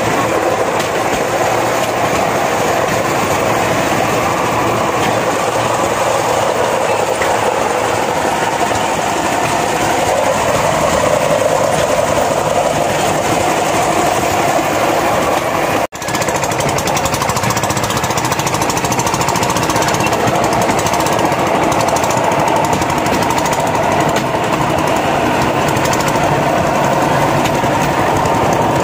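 Rail skate (a small rail trolley) running along old railway track, a loud, steady, rapid rattling clatter of the cart and its wheels on the rails. It breaks off for an instant about 16 seconds in, then goes on.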